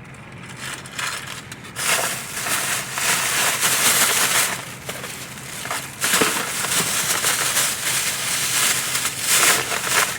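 Packaging crinkling and crackling as it is handled close to the microphone, in two long stretches with a short break about six seconds in.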